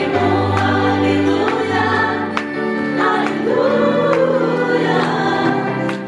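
Live Christian worship song: women singing into microphones over instrumental backing with long held low bass notes, and many voices singing together.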